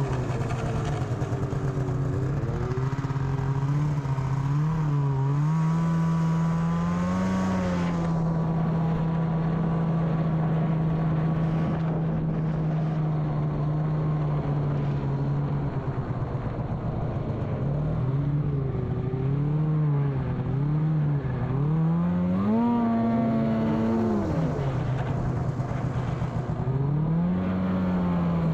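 Snowmobile engine running under way, its pitch mostly holding steady and rising and falling with the throttle several times.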